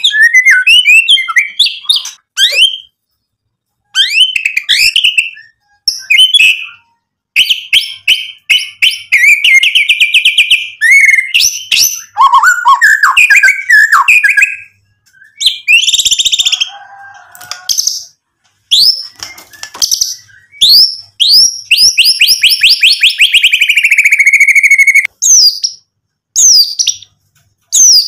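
White-rumped shama (murai batu) singing loudly in full song: a varied run of whistled phrases, gliding notes and fast trills broken by short pauses. Near the end comes a long, rapid trill that falls in pitch.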